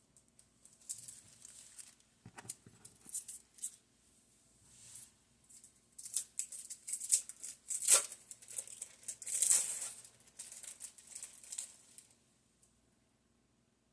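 Packaging crinkling and rustling in irregular spurts as slices of cheese are handled and put on the bread, with one sharp click about eight seconds in.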